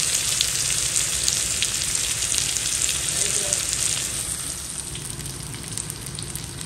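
Masala-coated taad surmai fish pieces shallow-frying in oil on a tawa over a medium flame: a steady sizzling hiss with scattered crackles. The sizzle eases off a little about halfway through.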